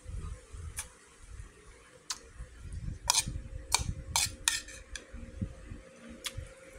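Metal spoon clinking and scraping against a flower-patterned bowl while scooping up rice and omelette, a series of sharp clinks with most of them in a quick run around the middle.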